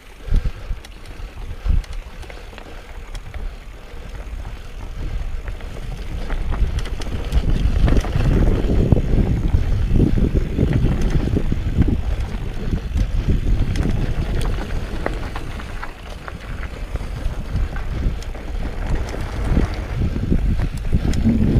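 Mountain bike riding a trail: wind buffets the camera microphone over the rumble of tyres, with scattered clicks and rattles from the bike. It grows louder about a third of the way in and stays loud.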